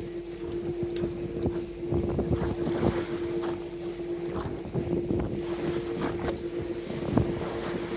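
Boat engine running with a steady hum, under wind buffeting the microphone and irregular splashing of choppy water.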